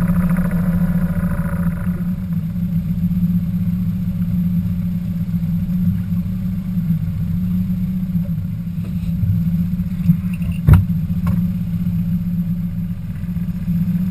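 A boat's outboard motor running steadily with a low hum. Music fades out about two seconds in, and a single sharp knock comes about ten and a half seconds in.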